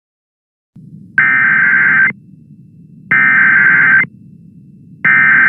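Emergency Alert System SAME header: loud bursts of digital data tones, each about a second long with a second's pause between them, after a low hiss starts about a second in. These are the coded start of the alert, carrying its event type (here a tornado warning) and area to receivers.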